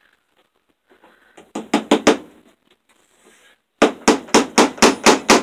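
Hammer driving cable staples over electrical wire into a wooden frame: four quick taps about a second and a half in, then steady blows about four a second from near the end.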